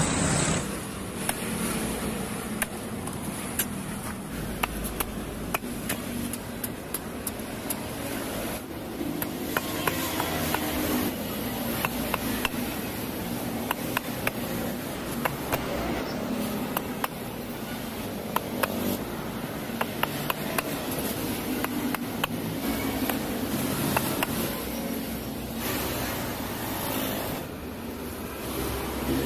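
A heavy knife chopping palmyra palm fruits open on a wooden block, with many sharp, irregular chops and knocks over steady street traffic noise.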